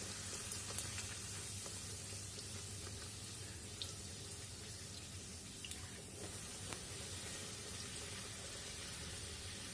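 Bhatura deep-frying in hot oil in a kadai: a steady, faint sizzle with a few small pops now and then.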